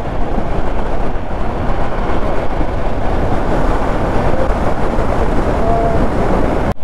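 Steady rush of wind and road noise from a Hero Xpulse 200 4V motorcycle riding at highway speed, with its single-cylinder engine running underneath. The sound drops out abruptly for an instant near the end.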